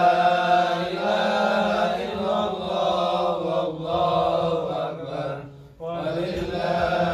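A man reciting the Qur'an aloud in a chanted, melodic style into a microphone, drawing out long held notes, with a short pause for breath near the end.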